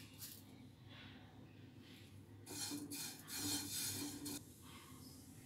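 Spatula stirring dry vermicelli in a nonstick kadhai as it is dry-roasted without oil. The strands rustle and rasp against the pan in a short run of faint strokes about halfway through.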